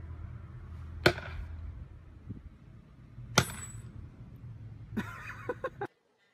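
Two sharp cracks about two and a half seconds apart over a low steady rumble. Near the end comes a short burst of clattering that cuts off suddenly.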